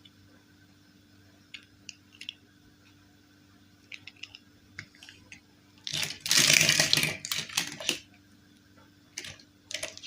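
Small plastic doll parts and packaging being handled: scattered light clicks and taps, with a loud rustle lasting about two seconds just past the middle.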